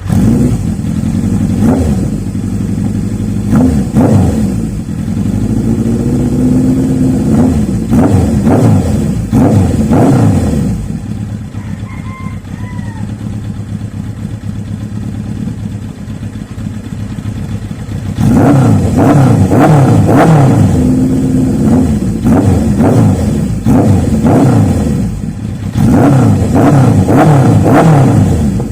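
1987 Suzuki GS650L inline-four engine revved again and again through a freshly built 4-into-1 exhaust with an M4 muffler, the pitch climbing and falling with each blip. It settles to a quieter idle for several seconds in the middle, then revs hard again.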